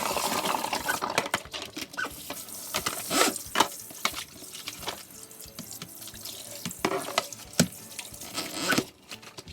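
Tap water running into a kitchen sink while dishes are washed, with repeated clinks and knocks of dishware; the water and clatter stop abruptly near the end.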